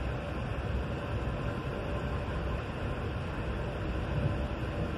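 Steady rumble and hiss of a moving sleeper train, heard from inside the carriage.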